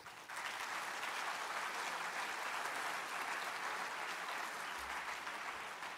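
Audience applauding steadily, the clapping slowly dying down near the end.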